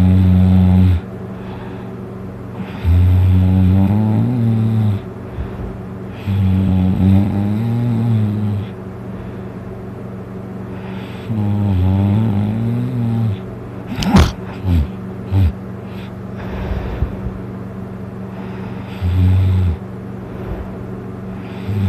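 A heavily drunk person snoring loudly, asleep on his back. The snores are deep and rasping, each one to two seconds long, about every three to five seconds. There is a longer pause around the middle with a few sharp knocks, and a steady low hum underneath.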